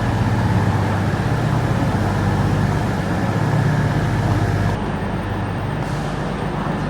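Steady running noise of a road or rail vehicle, a hiss over a low hum. The hiss thins out about two-thirds of the way through.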